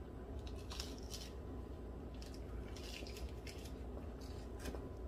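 A person chewing food with faint wet mouth sounds: a handful of short, irregular smacks and clicks over a low, steady room hum.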